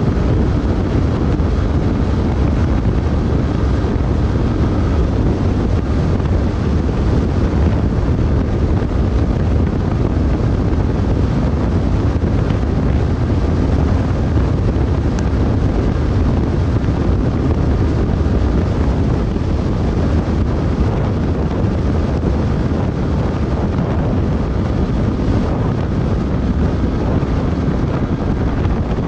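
Steady wind rush buffeting the microphone of a Honda X-Blade motorcycle held flat out at top speed. The bike's single-cylinder engine runs steadily underneath.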